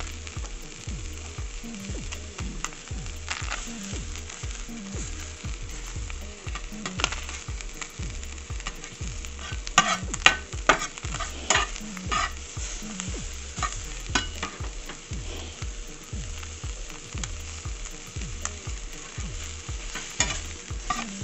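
Sliced onion, garlic and ginger sizzling in a stainless steel frying pan, stirred with a utensil that scrapes and clicks against the pan. The scraping is loudest about ten to fourteen seconds in.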